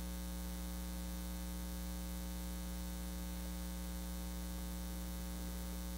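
Steady electrical mains hum: a low buzz with many evenly spaced overtones.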